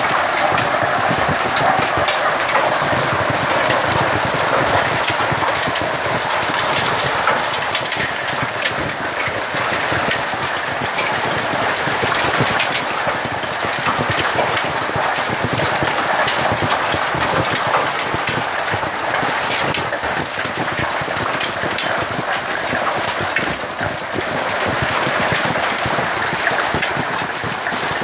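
Hailstorm: hailstones and heavy rain falling together, a dense, steady hiss full of fine clicks from stones striking.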